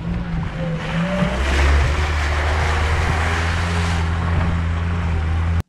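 UAZ Bukhanka van's engine running steadily as the van drives through a muddy, flooded dirt road, with tyres splashing and hissing through water and slush from about a second in. The sound cuts off suddenly near the end.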